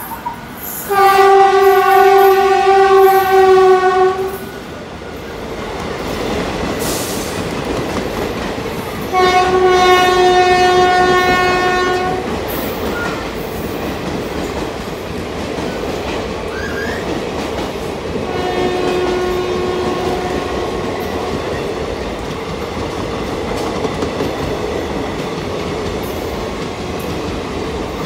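WAP-4 electric locomotive's horn sounding three times: two long blasts of about three seconds each, the second some eight seconds after the first, then a shorter, fainter third. Between and after the blasts comes the steady rumble and clickety-clack of passenger coaches rolling past over the rails.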